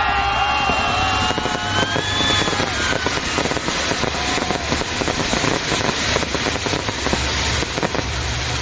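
Fireworks display: several whistling rockets with wavering, gliding tones over the first three seconds, over a continuous dense crackle of small pops.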